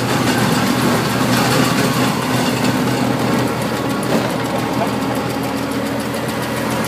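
Fendt 207 V tractor engine running steadily under load at low revs, about 1600 rpm, with the noise of a 2 m flail mulcher shredding grass behind it at about 15 km/h.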